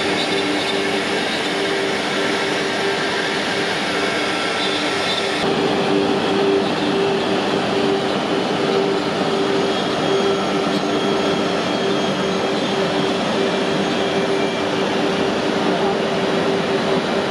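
CNC router's HSD spindle running and carving a relief into MDF: a steady spindle whine with a constant tone over the noise of the cutting. The sound shifts slightly about five seconds in.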